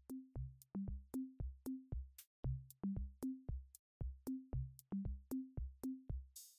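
Quiet background music: an electronic drum-machine beat of short, evenly spaced hits, about four a second, each with a low kick and a brief pitched note.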